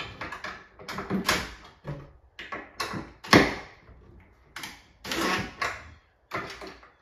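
Irregular knocks and clatter from a wooden cabinet door being fitted and adjusted on its hinges, with the loudest knock about three seconds in.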